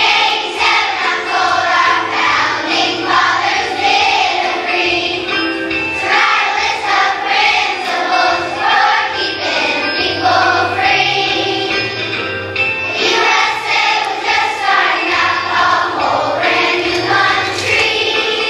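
Children's choir singing together over musical accompaniment, low bass notes running underneath the voices.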